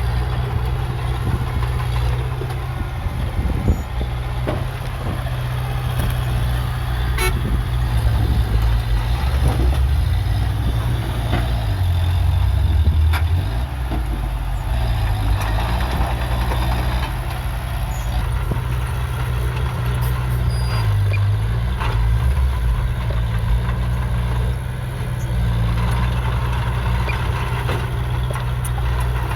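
Heavy diesel engine of earthmoving machinery running steadily under load, its pitch rising and dipping a few times as it works, with occasional metallic clanks.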